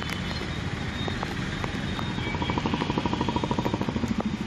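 Street traffic noise with vehicle engines running. About halfway through, an engine's rapid, even putter comes up close and then fades.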